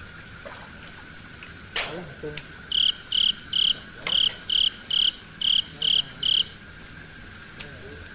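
A series of about ten short, high chirps, evenly spaced at about two and a half a second and lasting some four seconds, over a faint steady high hum; a single sharp click comes shortly before the chirps.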